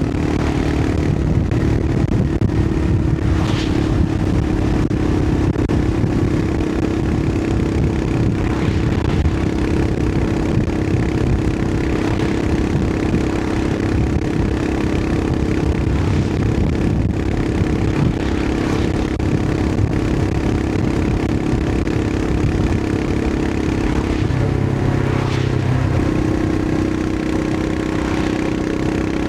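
Royal Enfield Himalayan 411's 411cc single-cylinder engine running steadily as the motorcycle rides along, with wind noise. About 25 seconds in the engine note briefly wavers and drops before settling again.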